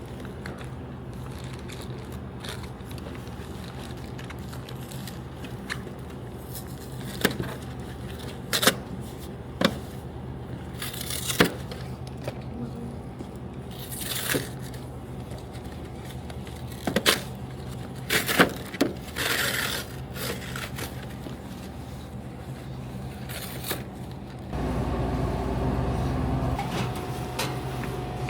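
Snack and drink items being handled and loaded into a vending machine: scattered knocks, clicks and crinkles over a steady hum. About 25 s in, a louder low rumble with a steady tone starts.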